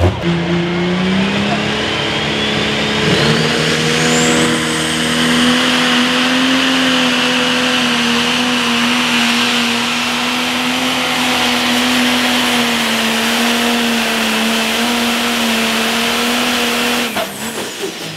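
Turbocharged diesel engine of a Case IH Magnum pro stock pulling tractor at full throttle under load while pulling a sled. The engine note climbs in the first few seconds as a high turbo whistle rises steeply, then holds a steady high-rpm note with a constant turbo whine. About a second before the end it cuts off sharply as the throttle is shut at the end of the pull.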